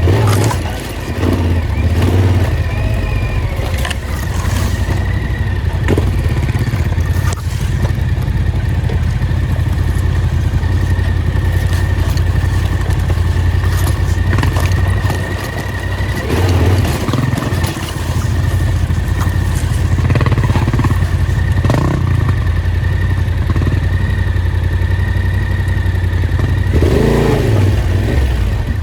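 Off-road vehicle engine running steadily as it is driven along rough forest tracks, with a thin steady whine and scattered knocks and rattles from the bumpy ground.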